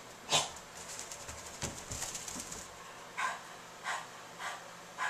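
A small spaniel-mix dog tussling with a bath towel: a sharp rustle about a third of a second in, then fine scratchy clicks, then short, noisy huffing breaths about every half-second over the last two seconds.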